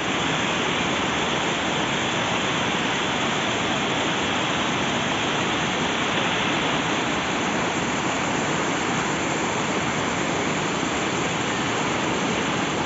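Waterfall pouring, a steady, even rush of falling water with no change in level.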